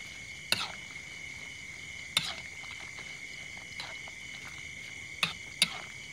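A spatula knocking and scraping against a wok five times while stirring the stir-fry. Behind it runs the steady high chirring of crickets.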